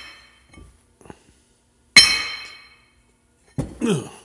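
Freshly charged horseshoe magnet from an International Harvester F4 magneto snapping onto a steel plate with one sharp, ringing metallic clank about two seconds in, after a few faint clicks. It is being pulled off and let snap back to test its strength after charging.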